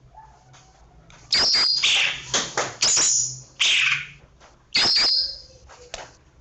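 Green leafbird (cucak ijo) singing loud, rapid-fire 'tembakan' song: sharp strokes and short high whistled notes in three or four quick phrases with brief pauses, starting about a second in.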